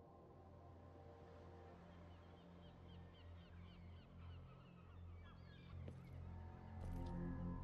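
Faint birds chirping from the animated show's soundtrack, a quick run of short repeated calls, over a low steady drone. A couple of faint clicks come near the end.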